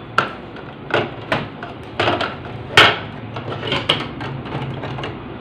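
Plastic paper input tray of an HP Neverstop Laser MFP 1200w being fitted into the printer: about seven or eight sharp plastic clicks and knocks as it is pushed and snapped into place, the loudest a little under three seconds in.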